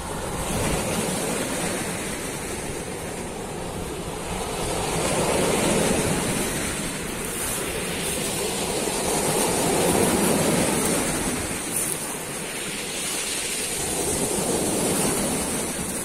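Sea waves breaking against the sea wall below the promenade, the surf rising and falling in surges every four to five seconds.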